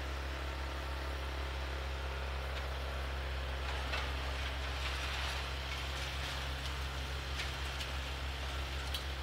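Kubota Grand L4760 diesel tractor running steadily under load with its front-mounted snowblower throwing snow, a low steady engine hum with a rushing hiss that swells in the middle.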